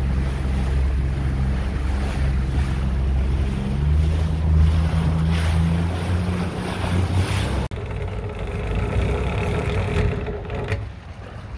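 Motorboat engine running under way, a steady low hum with wind and water noise; its note steps up about four seconds in. Near two-thirds of the way through, the sound cuts abruptly to a quieter, higher steady engine hum.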